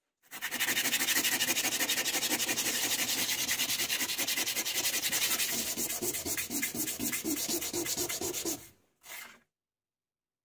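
A small metal coin rubbed rapidly back and forth on sandpaper by hand: a fast, even scratching of about seven strokes a second that stops near the end, then one short last scrape.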